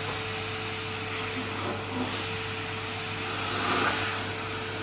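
Numatic Henry-style cylinder vacuum cleaner running steadily, its motor giving an even rushing hum with a constant tone.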